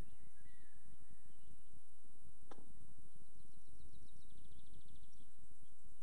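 Riverside ambience: small birds singing, with a fast trill about four seconds in and one sharp downward-sweeping call at about two and a half seconds, over a steady low rumble.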